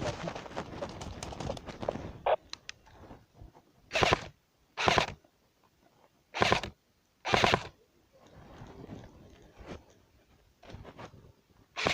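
Rustling and crunching of leaves and branches as a player moves through undergrowth, with four short loud swishes in two pairs about a second apart partway through.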